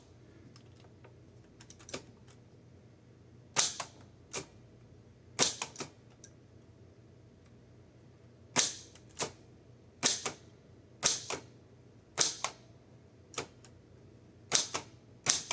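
Keys of a 1917 Corona 3 folding typewriter struck slowly one at a time: about a dozen sharp, separate clacks, irregularly spaced, roughly one a second with a few longer pauses.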